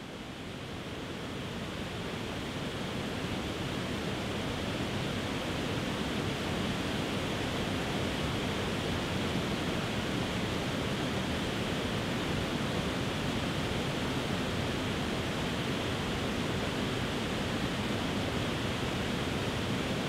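Tiered waterfall cascading over rock ledges: a steady rush of falling water, fading up over the first few seconds and then holding even.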